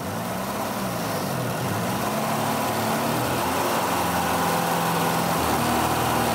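Lada four-cylinder petrol engine running on a Toyota 2C-T diesel high-pressure injection pump, its revs creeping up as the pump lever is opened to feed more fuel.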